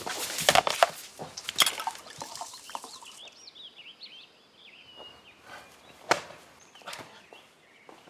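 A burst of clattering knocks for about three seconds, then quieter small-bird chirping with a couple of single knocks.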